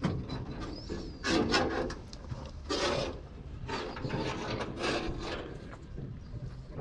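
A handful of rough scraping, rasping sounds about a second apart, the two loudest in the first half, over a low background rumble.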